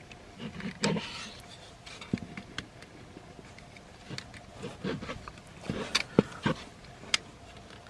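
Clicks, snaps and rubbing of the plastic parts of a Transformers action figure being handled and unpegged during transformation, with a few sharper clicks and knocks scattered throughout.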